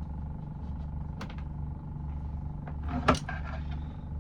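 Wiring being tucked behind a van's interior panel: a small click about a second in, then a sharp knock with a brief clatter about three seconds in, over a steady low hum.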